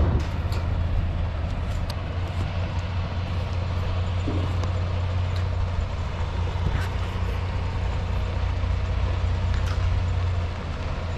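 Semi-truck diesel engine running at low speed as the tractor-trailer backs up slowly: a steady low rumble with a few faint ticks.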